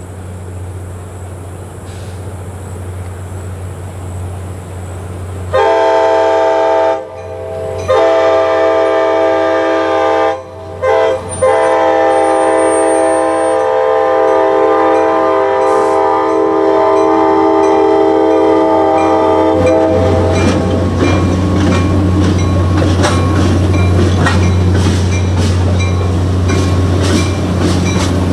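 Diesel locomotive horn sounding the grade-crossing signal as the train approaches: long, long, short, long, with the last blast held about eight seconds. The locomotives then roll through the crossing with engine rumble and wheels clicking over the rail joints.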